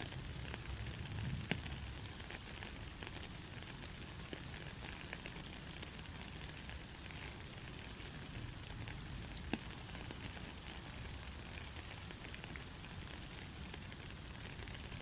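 Rain falling steadily, a constant hiss with scattered sharp drop clicks.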